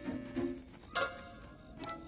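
Background music of short plucked string notes, then a single higher ringing note about a second in that fades away.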